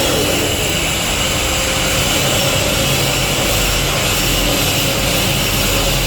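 Stick (shielded metal arc) welding arc crackling and hissing steadily as a cover pass is run with an E6013 electrode.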